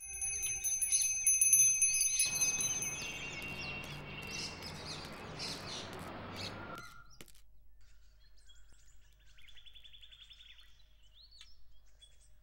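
Birds chirping over a steady background hiss. The hiss cuts off about seven seconds in, leaving only faint, scattered chirps.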